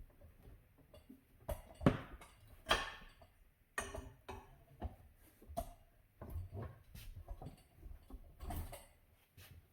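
Steel tire bar and manual tire changer clanking and scraping against the wheel rim as the second tire bead is levered off: a run of irregular knocks and clicks, the loudest about two and three seconds in.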